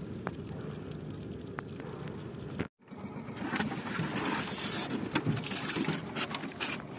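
Steady low rumble of wind and water around a small outrigger fishing canoe. It breaks off abruptly, then gives way to louder close sloshing with scattered knocks and clicks near a water-filled styrofoam box holding live sardines used as bait.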